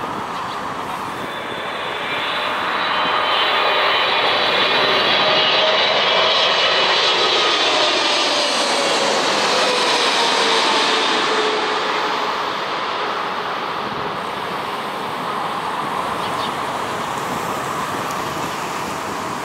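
Boeing 777 twinjet airliner passing low overhead on final approach, gear down. The jet noise swells over a few seconds, with a high engine whine and a lower tone that slides down in pitch as it goes over, then eases off.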